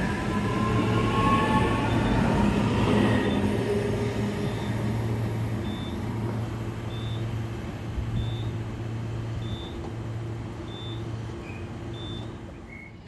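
A passenger train running past, with a motor whine gliding in pitch early on and a steady low hum. It is loudest in the first few seconds, then fades away as it recedes.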